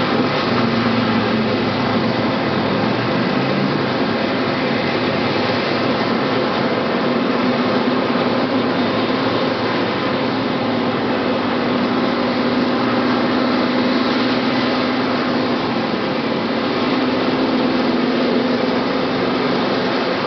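Sikorsky HH-60J Jayhawk's twin turboshaft engines running steadily at idle on the pad: a loud, even turbine rush with a low hum underneath.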